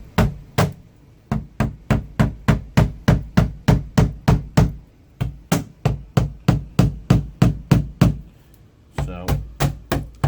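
Light, quick hammer taps on a hollow-wall molly anchor, about five a second, in four runs with short pauses. The anchor is being driven flush into a plastic shower wall that has hollow pockets behind it.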